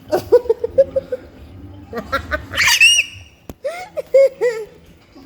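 A toddler vocalizing in short babbling sounds, with a high squeal about two and a half seconds in and a sharp click about a second later.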